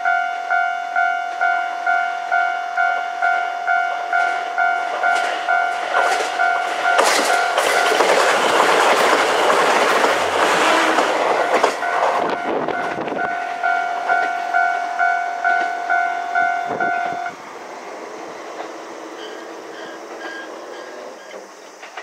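Japanese level-crossing warning bell dinging about twice a second while a KiHa 189 series diesel limited express train passes, loudest from about 7 to 13 seconds in, with wheels clicking over the rail joints. The bell stops abruptly about 17 seconds in, leaving only the faint sound of the departing train.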